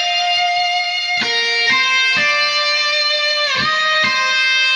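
Background music led by a guitar: sustained ringing notes, a new note starting every half second or so, with a slide down in pitch about three and a half seconds in.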